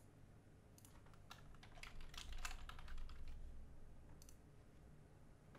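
Faint clicking of a computer keyboard and mouse: a quick run of key and button clicks about one to three seconds in, then a single click near the four-second mark, over a low steady hum.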